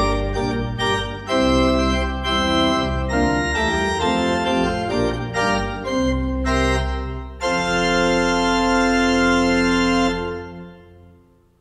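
Pipe organ playing the closing chords of a piece, the chords changing every half second or so, then one long final chord held for a few seconds that fades away near the end.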